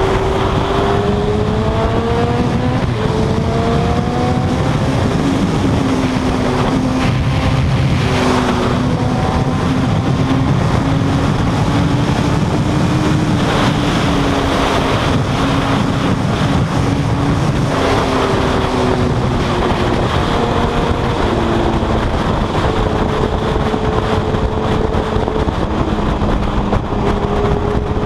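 Suzuki GSX-R 1000 inline-four engine heard from the rider's seat, revving up and shifting through the gears in the first few seconds, then running steadily at highway speed, with the revs rising again near the end. Constant wind rush over the microphone.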